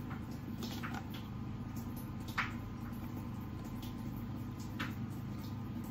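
Raw pork steaks handled and laid down on a wooden cutting board: a few light taps and soft slaps, the sharpest about two and a half seconds in, over a steady low hum.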